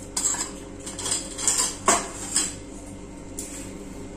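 A metal spoon clinking and scraping against metal kitchen containers: a run of quick knocks and scrapes through the first two and a half seconds, the sharpest clink about two seconds in, then one more light knock a little later.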